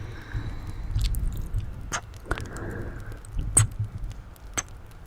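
Close-miked ASMR mouth sounds: a handful of sharp, wet mouth clicks and smacks at irregular intervals over a low rumble.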